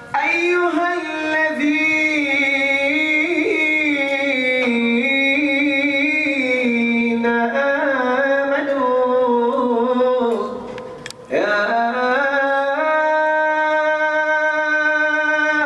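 A solo male voice chanting a religious recitation (a latmiya) in long held, ornamented notes. He breaks for a breath about ten seconds in, then comes back on another long held note.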